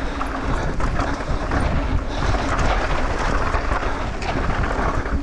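Wind rushing over the microphone and tyres rolling on loose, dusty dirt as a downhill mountain bike descends at speed, with a few light rattles from the bike.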